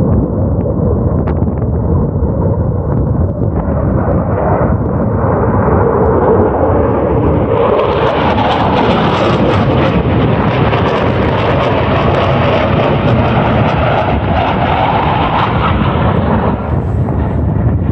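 Jet aircraft flying a display pass overhead: a loud, steady rushing noise that turns brighter about eight seconds in and falls off again near the end.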